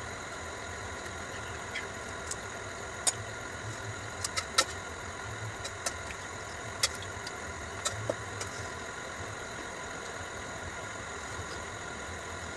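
A few short, sharp clinks and clicks of steel utensils and a steel pot being handled as food is served, most of them between about three and eight seconds in, over a steady background hum.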